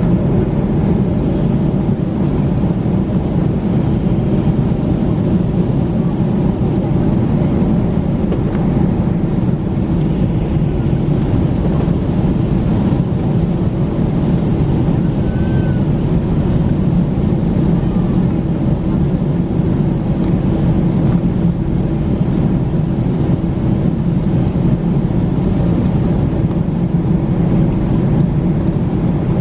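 Steady cabin noise inside an Airbus A321 with its engines running, an even rush with a faint steady hum under it.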